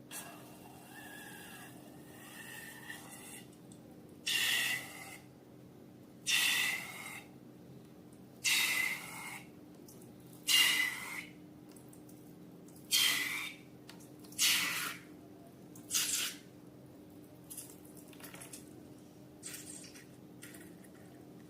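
Slime being squeezed and worked by hand: a run of short wet squelches about every two seconds, growing fainter near the end.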